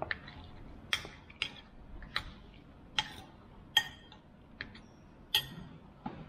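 A metal spoon clinking and scraping against a ceramic bowl while scooping cheesy noodles, about nine sharp clinks roughly a second apart.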